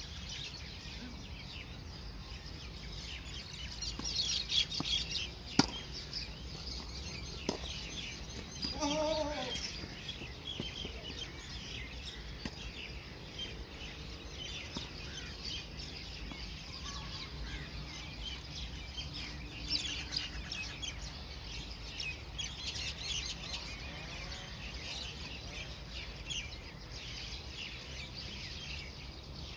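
Birds chirping and calling throughout, over a steady low rumble. There is one sharp knock about five and a half seconds in and a fainter one a couple of seconds later.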